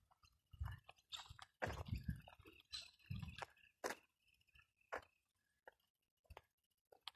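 Footsteps crunching on dry dirt and gum-leaf litter: irregular soft thuds with a crisp crackle, thinning out in the second half.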